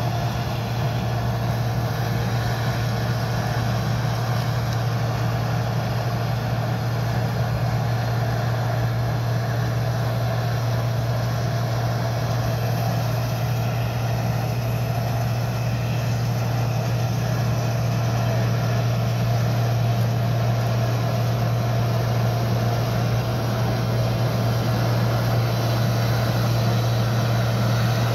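Heavy diesel farm machinery engine running at a constant speed: a loud, steady low drone that holds unchanged throughout.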